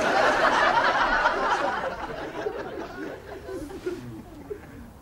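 Sitcom studio audience laughing, dying away over the first two seconds or so, leaving a faint murmur.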